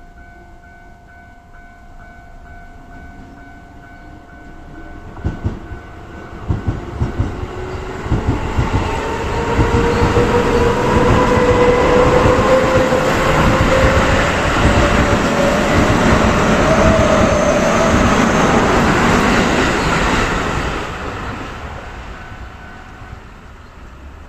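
Japanese level-crossing alarm ringing in a steady pulsing rhythm while a Keio 8000 series electric train passes. First come sharp clacks of wheels over rail joints, then a loud pass with a rising motor whine. The train noise fades, and the crossing alarm stops shortly before the end as the crossing opens.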